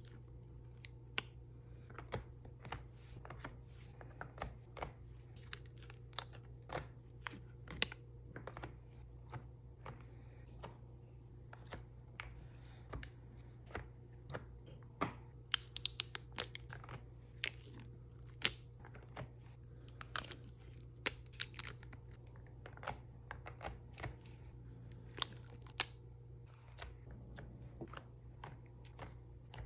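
Foil seals being peeled off small plastic jelly gouache cups, with frequent, irregular sharp clicks and taps as the plastic cups are handled and set into a plastic palette tray.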